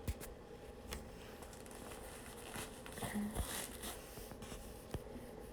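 Faint rustling and a few soft clicks from hands working and braiding damp hair close to the microphone, with the rustling busiest in the middle.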